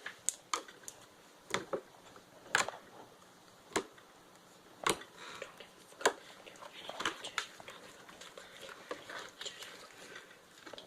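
Homemade slime of Elmer's glue and Gain laundry detergent being squeezed and stretched in the hands, giving scattered sharp clicks and pops at irregular intervals.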